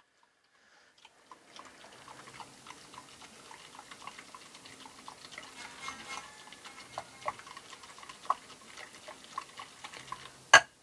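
Small whisk clinking quietly and irregularly against a bowl while hot broth is mixed into beaten egg and lemon juice, with faint liquid sounds; a single sharp clack comes near the end.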